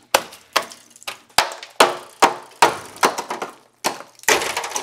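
Rusted-through fender and wheel-arch sheet metal of a 2003 Chevrolet 2500HD crackling and snapping as it is broken away by hand, a string of sharp cracks with crumbling in between. The metal is so rotten that it breaks off in pieces.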